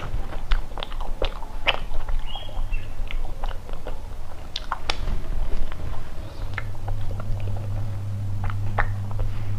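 Close-up chewing of soft bread filled with ice cream: short, irregular wet mouth clicks. A steady low hum stops just after the start and comes back about halfway through.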